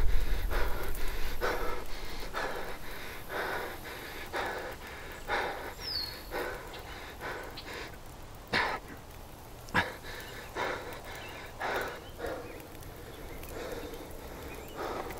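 A man breathing heavily in slow, rhythmic breaths about one a second, with two sharp clicks near the middle. A low rumble fades away over the first couple of seconds.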